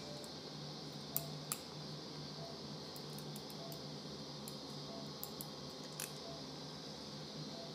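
Operating room ambience: a steady equipment hum with a faint anaesthesia monitor beeping about every 0.6 s, the dog's pulse, and a few sharp clicks from the suturing instruments, the loudest about a second in and again near the end.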